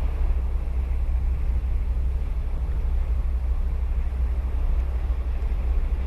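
Ocean surf washing steadily onto a sandy beach, with a constant deep rumble underneath.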